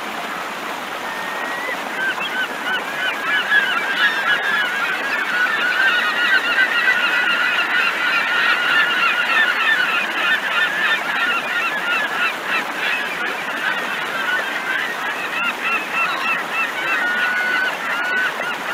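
A flock of birds calling: many short, overlapping honking calls that build up about two seconds in, crowd together through the middle and thin out near the end.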